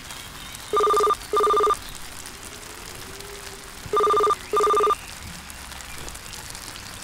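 Telephone ringing with a double-ring pattern: two short electronic rings close together, the pair repeating about every three seconds, the signal of an incoming call. Two pairs sound, and a third begins near the end.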